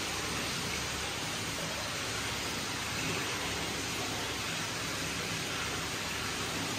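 Hot spring water pouring steadily from an inlet spout into an indoor stone bath: an even, unbroken splashing rush.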